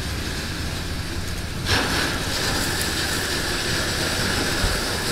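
Mercedes-Benz G-Class SUV rolling slowly down a steep ribbed steel ramp: a steady low rumble with tyre noise over the metal. The noise gets suddenly louder and brighter about a second and a half in and stays so.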